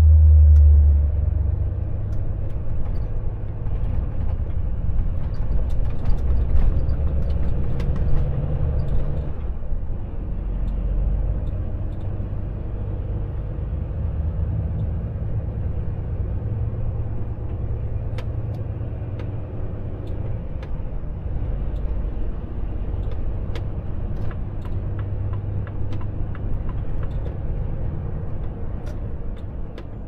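Volvo FH truck driving, its diesel engine and road noise making a steady low rumble that swells and eases as the engine speed changes, loudest right at the start, with scattered light clicks.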